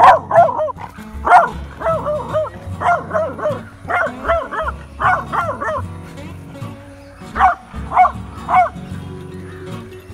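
A beagle barking, in quick runs of several barks for the first six seconds, then three single barks about half a second apart near the end, each bark rising and falling in pitch. Background music plays underneath.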